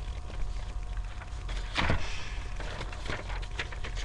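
Steady low hum of background noise with scattered soft clicks and a single louder bump and rustle a little under two seconds in.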